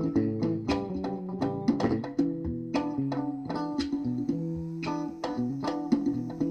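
Guitar music: plucked notes following one another quickly in a steady rhythm.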